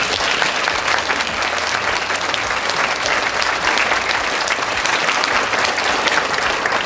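Audience applauding: dense clapping that starts suddenly, holds steady and dies away near the end.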